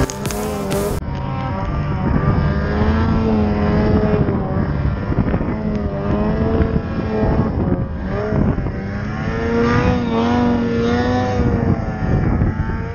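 Ski-Doo Summit X snowmobile's two-stroke engine with a tunnel-dump exhaust, revving up and down under load as the sled ploughs through deep powder; the pitch rises and falls repeatedly.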